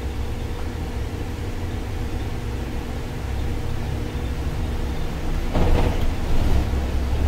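Cabin sound of a MAN Lion's City articulated city bus with a biogas engine driving along: a steady low engine hum with a faint drone and road noise. Near the end a brief, louder rush of noise rises over it.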